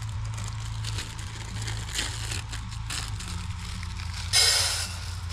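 Cooking gear being handled at a camp: scattered clicks and knocks, and one short, loud burst of noise about four seconds in. Music from a neighbouring camp plays faintly underneath as a steady low hum.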